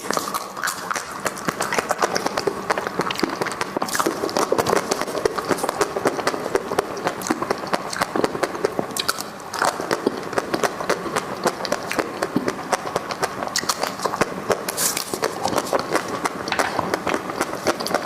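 Close-miked eating sounds: a continuous stream of rapid crunching, chewing and mouth clicks, with a short lull about nine seconds in.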